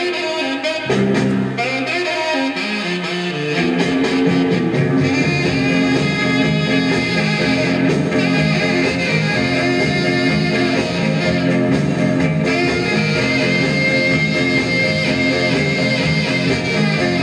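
Guitar-led blues-rock record playing through a 1956 RCA 7-HF-45 Orthophonic 45 rpm record player, with its four-tube amplifier and separate woofer and tweeter, lid closed. Guitar and bass, growing fuller and a little louder about four seconds in.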